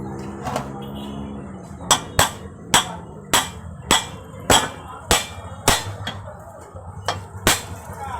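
Hammer strikes, sharp and evenly paced at about one every 0.6 s, starting about two seconds in. Background music fades out at the start.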